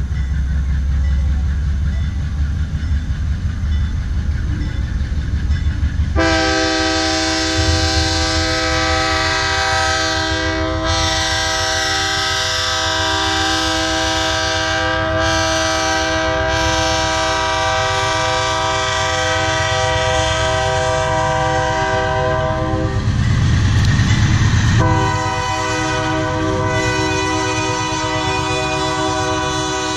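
Diesel locomotive's multi-chime air horn sounding a long blast, a chord of several tones, starting about six seconds in over the engine's deep rumble. The horn drops out for about two seconds near the end as the rumble swells, then sounds again.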